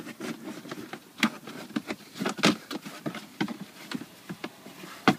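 Knife cutting through a thin plastic tote tray: irregular crackling scrapes and clicks, with a few sharper snaps of the plastic.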